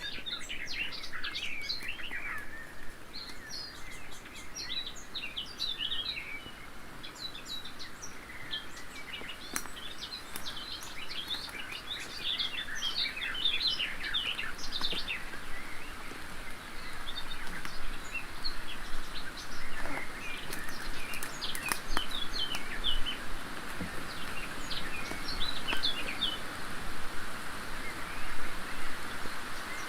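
Several songbirds singing at once, many short chirps and phrases overlapping, over a steady faint hiss. A few sharp clicks stand out, about a third of the way in and twice about two-thirds of the way in.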